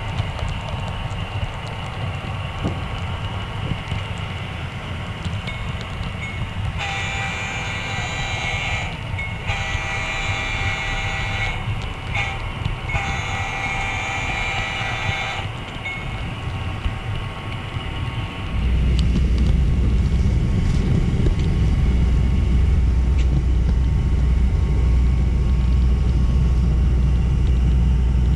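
Model train running along the layout track with a steady low rumble. Partway through, the locomotive's horn blows the grade-crossing pattern: two long blasts, a short one and a long one. Near the end a louder, deeper rumble sets in.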